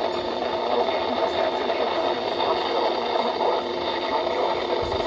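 NOAA Weather Radio broadcast heard through a receiver with a steady hiss of static, the broadcast voice reading the warning faint beneath the noise.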